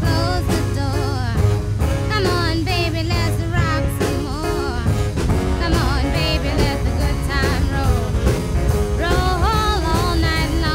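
Music with a singer's voice over a steady bass line.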